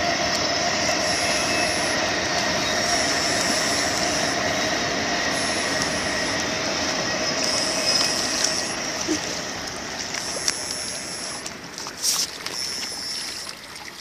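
Electrofishing rig's inverter giving a steady electric whine over a hiss, with a very high tone switching on and off. It eases off in the last few seconds, with a sharp click about twelve seconds in.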